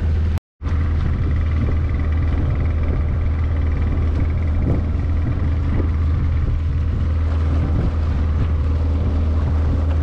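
A small wooden boat's motor running steadily under way, a low even drone with water and hull noise over it. The sound drops out for a moment about half a second in.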